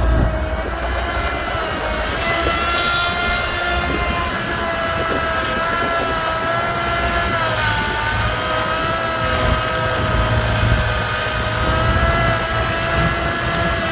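Excavator running steadily: a low engine rumble with a whine on top that dips in pitch briefly about eight seconds in, then recovers.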